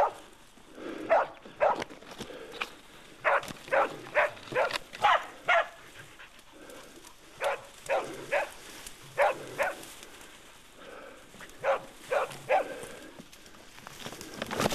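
Pig-hunting dog barking over and over, in quick runs of two to five sharp barks with short gaps between.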